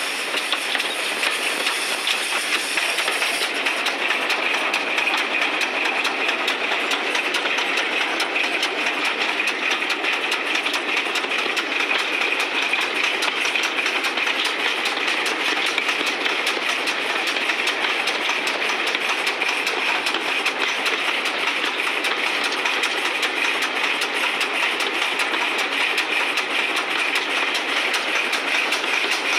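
GWR 1366-class pannier tank steam locomotive 1369 running along the line, heard from its cab: a steady mix of exhaust, wheel-and-rail clatter and rushing air. A high hiss drops away about three seconds in.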